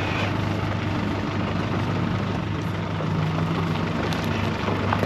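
Off-road 4x4 vehicle's engine running steadily at low revs.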